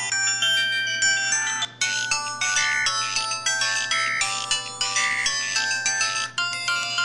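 LG-SD210 mobile phone playing its built-in ringtone melodies, electronic chime-like notes with several sounding at once. The tune breaks off and a different one starts about two seconds in, and again near the end.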